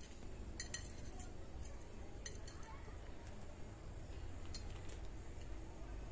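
Light metallic clinks of oxidised silver dangling earrings as they are handled and held up, their hanging parts knocking together: a handful of scattered faint ticks over a low steady hum.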